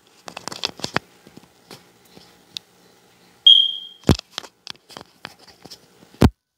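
Clicks, scrapes and handling noise of a lavalier mic's 3.5 mm plug being worked into a Comica BoomX-D wireless mic transmitter. The noise is heard up close through the transmitter itself, with two loud deep pops as the plug seats, about four and six seconds in. A short, loud, high beep sounds about three and a half seconds in.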